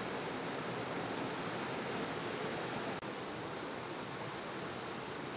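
Steady rush of a mountain stream and small waterfall flowing over rocks, with a momentary dip about three seconds in.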